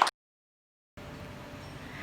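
Clapping cut off sharply right at the start, then under a second of dead silence, then a faint steady room hiss with a low hum.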